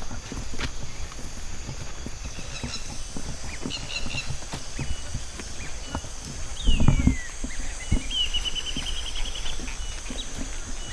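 Footsteps of a hiker walking on a dirt forest trail, with a heavier thump about seven seconds in. Birds call over a steady high insect hiss: short chirps, then a falling whistle and a quick rising series of notes.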